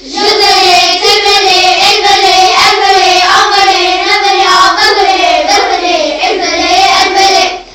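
A child singing one continuous, unbroken melodic line that breaks off near the end.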